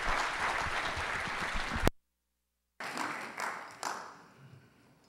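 Congregation applauding, broken off by a click and about a second of dead silence roughly two seconds in; the clapping then returns with a few last scattered claps and dies away.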